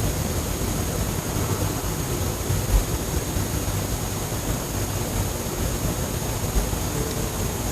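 A constant low, engine-like rumbling drone over a steady rushing noise, with a thin high whine held throughout and a couple of brief low thumps near the middle and near the end.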